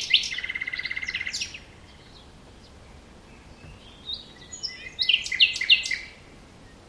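Small songbirds chirping in a morning birdsong ambience: a cluster of high chirps with a fast trill at the start, a pause of a couple of seconds, then another cluster of chirps about four seconds in.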